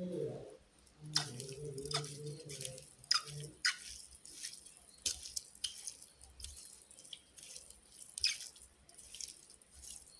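Bare hands squeezing and tossing shredded raw mushrooms in a small plastic bowl to coat them with chili powder: irregular wet clicks and crackles.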